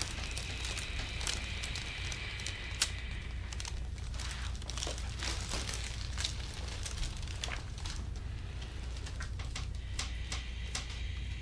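Light crinkling and rubbing sounds over a steady low hum, with scattered faint clicks and one sharper click about three seconds in: handling and movement on a treatment table during a chiropractic session.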